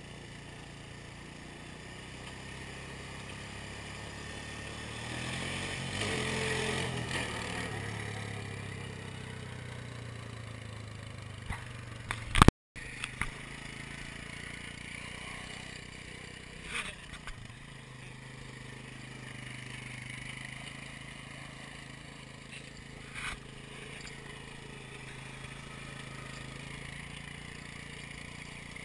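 ATV engine running and being revved up and down as the quad is ridden and tipped onto two wheels, with a few short knocks and clatters. Near the middle comes a loud click and a split-second dropout.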